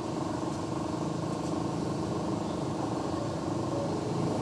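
Steady low hum of an engine running, with no distinct events.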